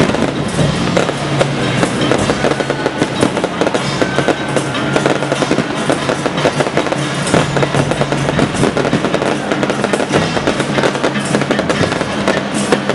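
Electronically fired aerial fireworks and street firecrackers going off in a dense, unbroken barrage of cracks and bangs, many reports a second.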